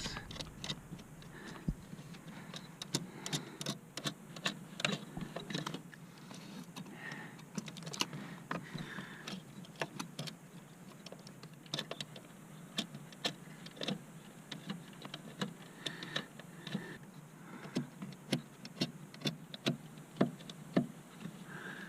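Irregular small clicks and taps as a 2010 Subaru Forester's screw-in brake light switch and its nuts are handled and fitted into the brake pedal bracket.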